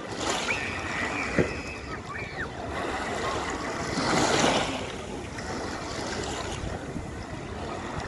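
Small waves lapping and washing over a pebble beach, one wash swelling louder about four seconds in, with light wind on the microphone. A short knock about a second and a half in.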